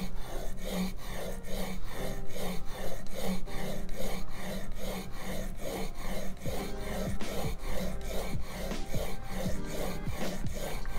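Steel plane iron scraped back and forth on 220-grit sandpaper over a stone slab, a rasping stroke about three times a second, grinding a new bevel on the blade. Faint background music underneath.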